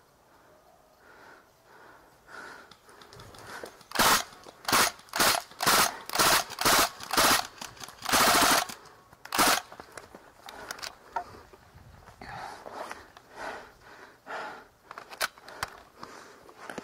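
Northeast Sten MKV gas blowback airsoft gun firing. About seven single shots come roughly two a second, then a short burst of rapid fire and one last shot.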